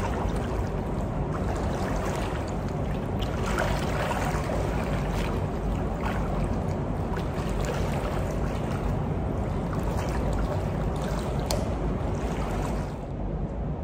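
Pool water sloshing and splashing around a person wading sideways through chest-deep water, over a steady low rumble. The splashing drops away near the end.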